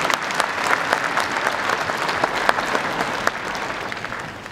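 Audience applauding, a dense patter of many hands clapping that thins and dies down near the end.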